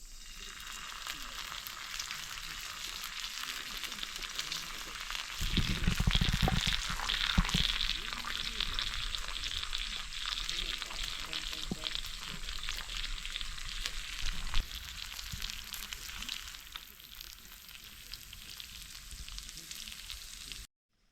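Meat sizzling on a hot iron griddle plate over a fire pit. It grows louder for a couple of seconds around six seconds in, with a few low knocks, then slowly dies down and stops abruptly near the end.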